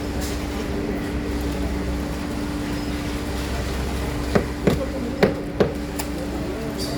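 A machine's engine runs with a steady drone and a constant hum. About two-thirds of the way through, four sharp knocks come in quick succession.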